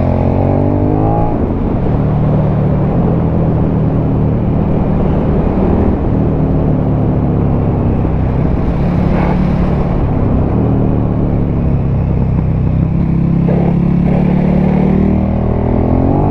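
KTM 1290 Super Duke R's V-twin engine running under way through an Akrapovic titanium slip-on exhaust with the catalytic converter in place. The revs rise in the first second, hold fairly steady through the middle, and rise again near the end.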